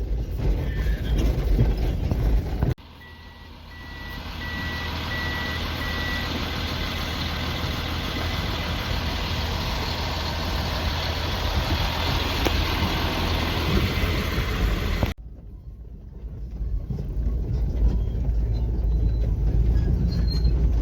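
Heavy road-construction machinery with diesel engines running in clips joined by abrupt cuts. In the middle stretch a reversing alarm beeps about twice a second for a few seconds over a steady hiss.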